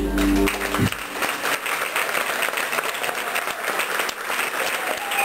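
A band's last held chord stops in the first second, and the audience breaks into steady applause.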